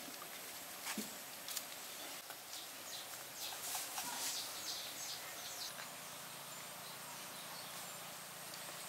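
Steady high insect drone of forest ambience, with scattered light clicks and scraping as thin wooden sticks and binding strips are handled, busiest around the middle.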